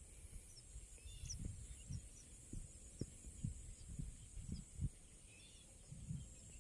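Faint outdoor field ambience: soft, irregular low thumps, a few short high bird chirps, and a steady high-pitched hiss.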